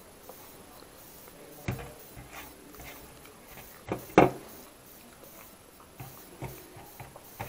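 Fingers gathering rice and rajma from a stainless-steel thali: a few scattered soft taps and scrapes of fingertips on the steel, with one sharper tap about four seconds in.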